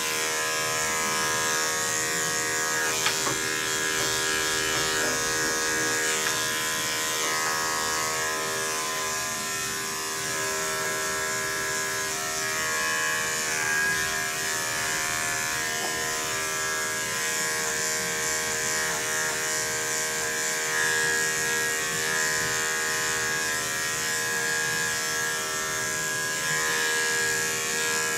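Electric dog-grooming clippers running with a steady hum while trimming a Scottish terrier's coat, with a brief click about three seconds in.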